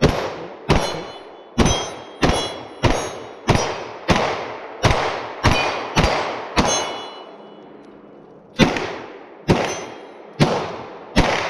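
A fast string of about fifteen gunshots, each followed by the ring of struck steel targets, with a pause of about two seconds before the last four shots.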